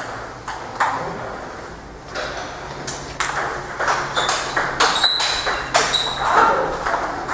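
Table tennis ball clicking off rackets and bouncing on the table: sharp, irregular taps, coming thicker from about halfway in as a rally gets going.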